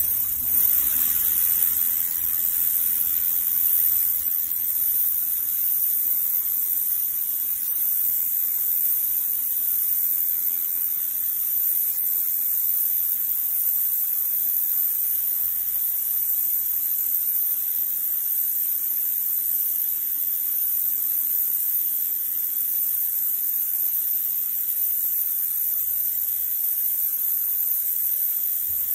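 Pressure washer spraying a concrete sidewalk: a steady high hiss of the water jet over the steady hum of the machine's motor and pump.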